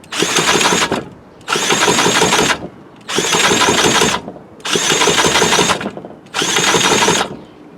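Mid-1950s Strunk Speed Demon chainsaw being pull-started: five hard pulls of the recoil starter, each a second-long whirring crank of the engine, without it firing. The carburettor has not been primed.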